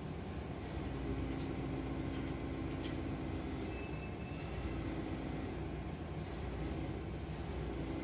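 Heavy machinery's diesel engine running steadily, with a low hum that comes in about a second in and returns twice more briefly.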